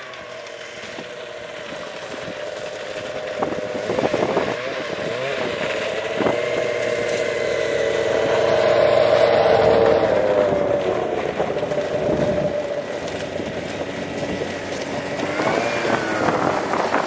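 Snowmobile engine running as the machine comes down onto the ice and passes close by: it grows louder to a peak about nine to ten seconds in, then its note drops in pitch and it fades as it moves away.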